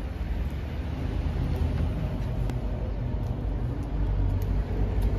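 Low, steady rumble of road traffic, growing a little louder about a second in.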